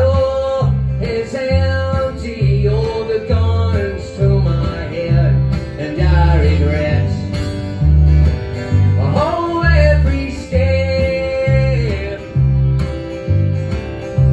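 A live acoustic string band playing: a bowed fiddle carrying the melody, with sliding notes, over a strummed acoustic guitar and the plucked notes of an upright bass.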